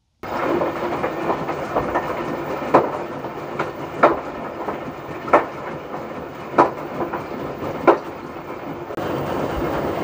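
Front-loading washing machine drum turning through soapy water on a tub-clean cycle: steady swishing, with a louder slosh about every second and a quarter as the water tumbles inside the drum.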